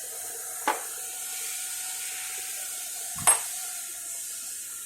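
Wheel hub being pressed into its bearing with a hydraulic press: two sharp metal clicks over a steady hiss. The second, about three seconds in, is louder and has a dull knock, as the hub seats home.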